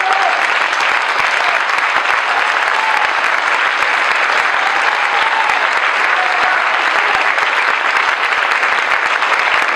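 Auditorium audience applauding loudly and steadily at the end of a speech, with a few voices shouting over the clapping.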